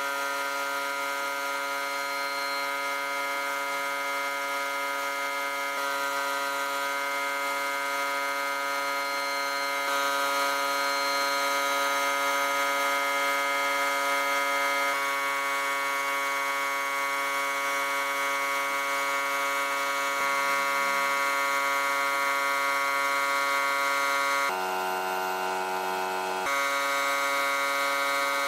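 Sandblasting in a blast cabinet: the blast gun hisses as it sprays abrasive grit onto a rusty forged hatchet head to strip the rust, over a steady machine hum. The hum's pitch shifts a few times.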